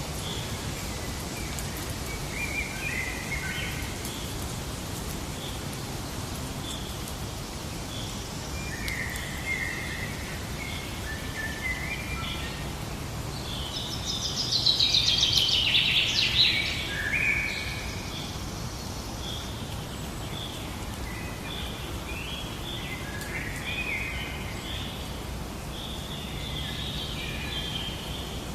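Birds chirping and singing over a steady background hiss, with short repeated calls throughout. One bird gives a louder, fast trill of rising notes about halfway through.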